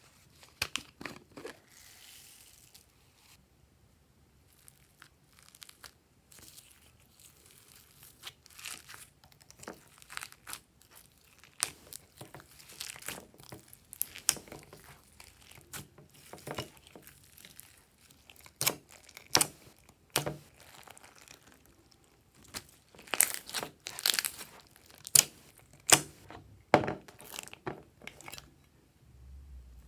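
Glossy slime being stretched, pressed and folded by hand, giving irregular sticky pops, clicks and crackles that grow denser and louder in the last few seconds.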